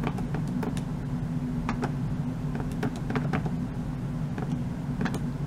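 Keys tapped on a calculator: irregular short clicks, several a second, over a steady low hum.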